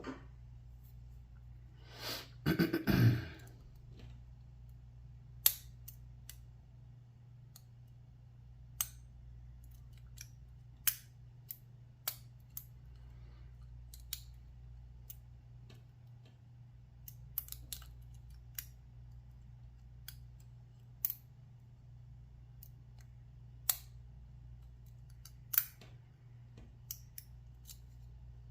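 Lock picking in a Lockwood 334B45 lock cylinder: scattered sharp metallic clicks of pick and tension tool working the pins, with a louder scraping rattle about two to three seconds in. A faint steady low hum runs underneath.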